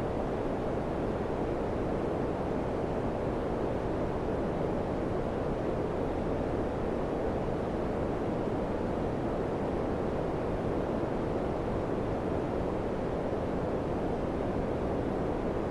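Daikin FCQ100KAVE4 ceiling-cassette air conditioner running, its fan giving a steady, even rush of airflow.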